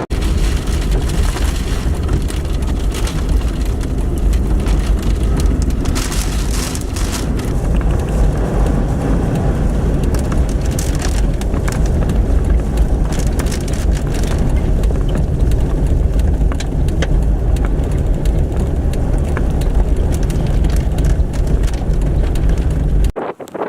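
Strong storm wind roaring and buffeting the microphone, with a deep low rumble and a scatter of sharp ticks, cutting off suddenly near the end.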